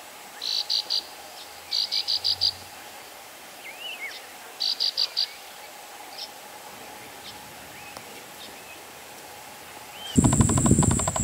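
Cricket-like insect chirps: three short bursts of four or five rapid pulses each, with a few faint whistled notes over a soft background hiss. Near the end a loud rumbling noise with a steady high whine cuts in suddenly.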